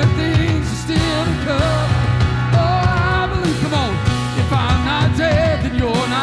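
Live worship band playing a praise song, with a man singing lead over the full band.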